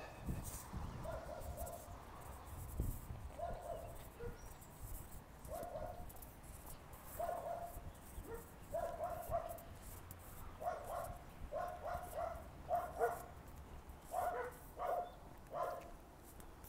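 A dog barking over and over, single barks at first, then quicker runs of two or three barks in the second half.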